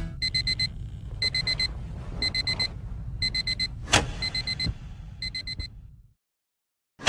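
Digital alarm clock beeping in quick groups of four high beeps, about one group a second, slowly fading, over a low rumble. A sharp click comes about four seconds in, the beeping stops about six seconds in, and a sudden loud hit comes right at the end.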